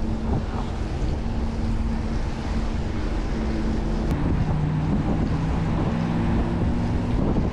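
Wind buffeting the microphone of a camera on a moving bicycle: a steady, loud rushing rumble.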